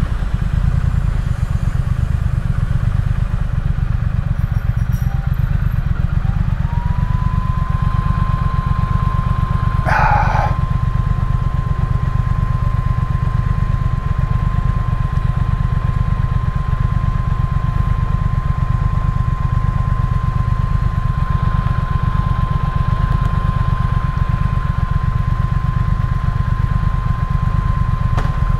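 Triumph Speed Twin's parallel-twin engine running steadily, a fast low pulsing throughout. A steady high whine glides up and holds from about six seconds in, and a short sharp noise comes at about ten seconds.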